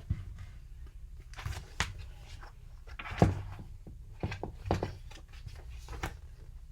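Handling noises from a picture book being held and moved: a few scattered soft knocks and rustles over a low steady hum.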